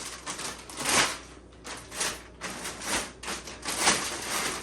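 Rustling and crinkling of packaging being handled, in a string of irregular bursts, the loudest about a second in and near four seconds in.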